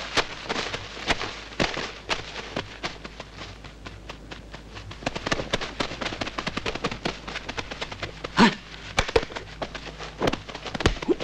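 Dry leaves crackling and crunching underfoot in a dense, irregular patter of sharp clicks, with a short pitched cry about eight and a half seconds in and a faint low hum beneath.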